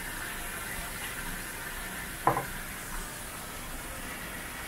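Water running steadily from a tap while a fish is being cleaned, with one sharp knock about two seconds in.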